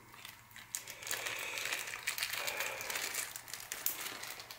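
Crinkling, rustling handling noise with scattered light clicks as bottom bracket bearings and cups are handled on a workbench.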